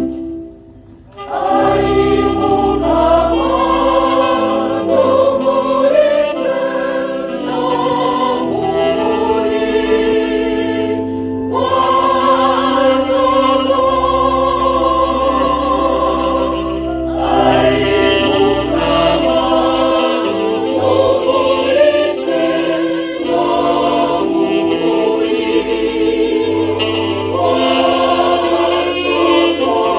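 Church choir singing a hymn in phrases. There is a brief break about a second in, and short pauses between phrases later.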